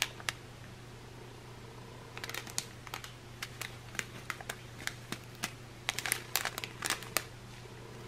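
Small plastic bags of resin diamond-painting drills being handled, crinkling with a run of light clicks and ticks that starts about two seconds in.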